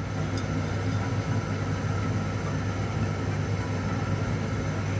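Steady low mechanical hum with an even rushing noise over it, unchanging throughout.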